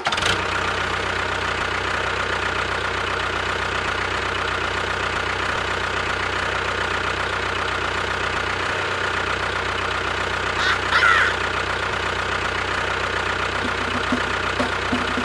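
A motor running steadily at a constant speed, with a brief high chirp about eleven seconds in.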